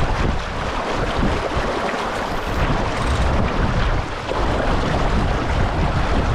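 Wind buffeting the microphone in gusts over a steady rush of water.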